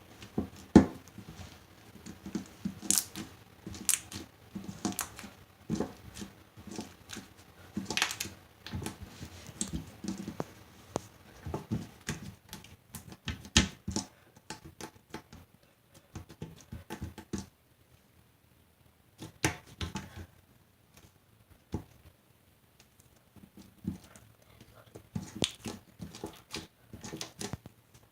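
Slime being squeezed and pulled by hand, giving irregular sticky clicks and pops, with a lull of a few seconds a little past halfway.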